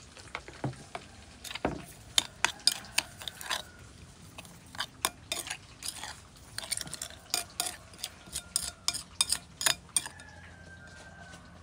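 Spoon clinking against a bowl in many quick, irregular taps while sugar is stirred into a ginger fish-sauce dip. The clinking stops about ten seconds in.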